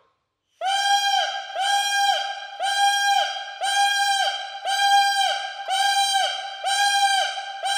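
Bassoon reed blown on its own, held in the fingers, sounding about eight short notes at one steady pitch, roughly one a second. Each note is started by breath alone, without the tongue, and slides up briefly into pitch at its start.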